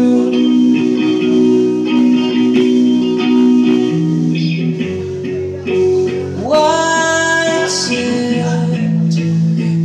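Amplified electric guitar music in a passage without words, held notes and chords changing about every second, with one note sliding sharply upward about six and a half seconds in.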